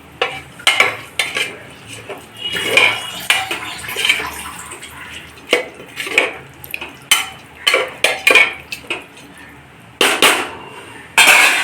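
Rice being stirred in a pressure cooker, a utensil scraping and clinking irregularly against the metal pot, with a louder clatter near the end.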